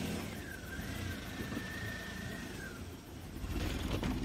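A car's engine running close by, a low rumble that grows louder about three seconds in as the car moves. A thin high whine wavers in pitch over the first three seconds.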